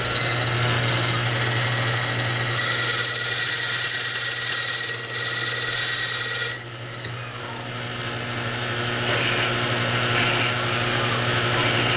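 044 semi-automatic key cutting machine running, its cutter wheel cutting a house key blank: a steady motor hum under a loud, high rasp for about the first half. After that the cutting goes lighter, with a few short louder strokes.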